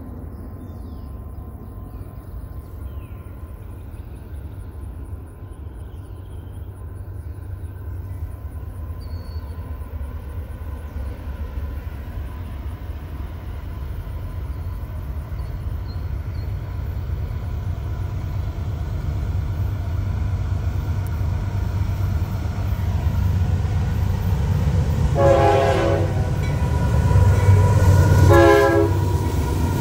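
Union Pacific diesel locomotives leading a long manifest freight train, approaching with a low engine rumble that grows steadily louder. Two blasts of the locomotive horn sound near the end.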